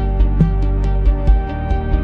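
Ambient sleep music: sustained synth tones over a steady low bass, with light high ticks pulsing a few times a second.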